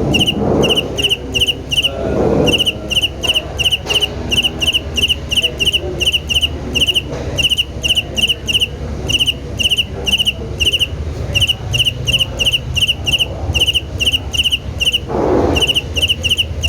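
Cricket chirping in an even rhythm, short high chirps about three a second in runs broken by brief pauses, over a steady low rumble that swells a couple of times near the start and again near the end.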